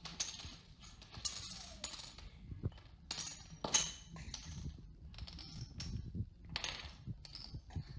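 Scattered light clicks and clinks as a dog steps through a maze of upright wooden blocks and markers on a wooden floor, with a few sharper knocks about three and a half seconds in and again near the seven-second mark.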